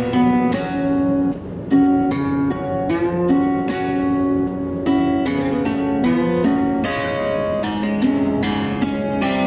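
Background music: strummed and plucked guitar in a wild-west style, with chords struck at a steady pace.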